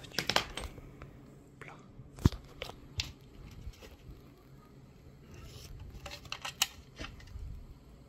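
Handling noise: scattered clicks, taps and rustles as a plastic-framed circuit board and its housing are moved about on a paper towel, with the sharpest click a little over two seconds in and a run of clicks later on.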